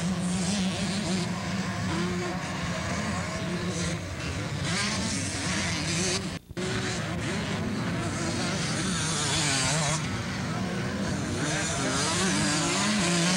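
Several two-stroke 125cc motocross bikes racing, their engines revving up and down as the riders accelerate and shift. The sound drops out for a moment about six and a half seconds in.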